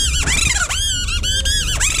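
Kathputli puppeteer's bamboo reed whistle (boli) giving the puppet a squeaky voice: a quick string of shrill chirps, each rising and falling in pitch.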